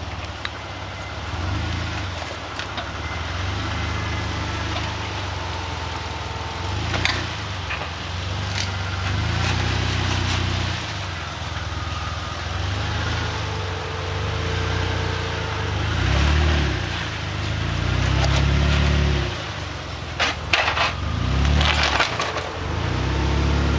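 Jeep Wrangler engine crawling in low gear over rough trail, its revs swelling and falling in repeated bursts of throttle. Sharp cracks and crunches come once about seven seconds in and several times near the end.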